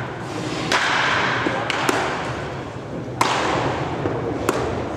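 Sharp knocks of baseballs smacking into a catcher's mitt during catcher drills, about four in all, roughly a second apart, the loudest about three seconds in. The knocks echo in a large indoor practice hall over a steady background din.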